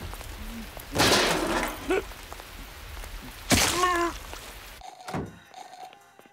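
Steady rain falling as a cartoon sound effect, with a loud rush of noise about a second in and a brief voice-like sound a little past the middle. The rain cuts off suddenly near the end, followed by a single thump.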